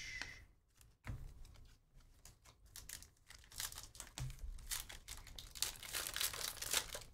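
Panini Prism basketball trading-card pack wrappers being torn open and crinkled in the hands. The crackling starts about a second in and grows denser and louder toward the end.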